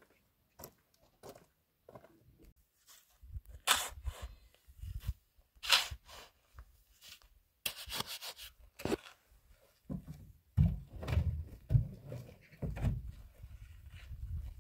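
A steel shovel scraping and digging into sand and gravel in a series of separate strokes, sharp scrapes at first and dull thuds in the later part.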